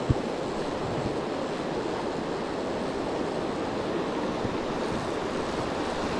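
Mountain stream rushing steadily, an even wash of running water, with a small knock right at the start.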